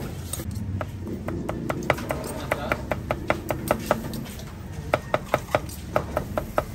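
Steel knife chopping cooked meat on a thick wooden log chopping block: a fast run of sharp knocks, about five a second, with a short pause a little past the middle.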